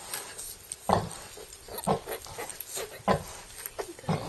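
Pig grunting: short grunts about once a second, four in all.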